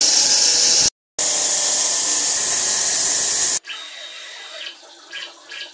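Large water-cooled circular stone saw cutting a granite block: a loud, steady grinding hiss, broken by a brief silence about a second in. Around three and a half seconds in it gives way to a much quieter sound with faint pulses about three times a second.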